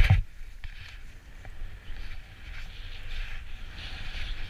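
Skis hissing through powder snow, swelling and fading with the turns, over a low rumble of wind on the helmet camera's microphone. A single thump lands right at the start.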